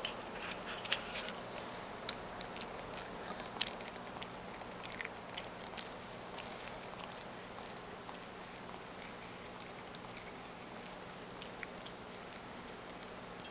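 A cat's tongue licking olive oil off a plate and then licking its lips: small wet clicks, frequent in the first few seconds, then sparser.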